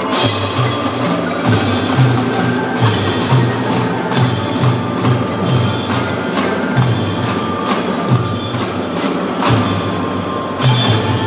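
Children's drum band playing: marimbas, xylophones and bell-like mallet percussion carry the tune over drums, with a regular beat of low pulses and sharp strikes.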